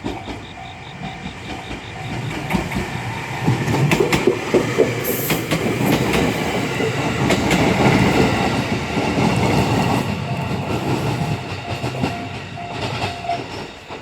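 JR West 223 series two-car electric train passing over a level crossing: wheels clatter over rail joints as it builds to a peak in the middle and fades after about ten seconds. The crossing's warning bell pulses at the start and again near the end, around the train's noise.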